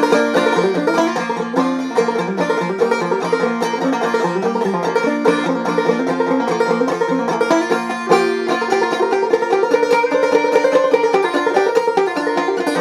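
Clawhammer banjo playing an instrumental break: a quick, steady run of plucked notes.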